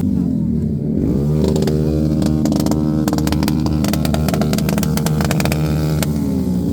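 Hero XPulse 210 motorcycle engine running under way: the revs dip and pick up again about a second in, hold steady, then ease down near the end. A fast rattle of clicks runs through the middle.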